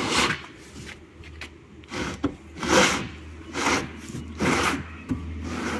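Black plastic water-tank lid being twisted and rubbed by hand against the tank's rim: plastic scraping on plastic in about five short rasping strokes.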